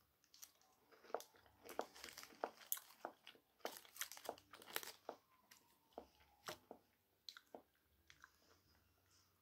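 Close crunching of a Nestlé Lion White wafer bar being bitten and chewed, with some crinkling of its wrapper; the crunches are thick for the first five seconds and thin out to a few toward the end.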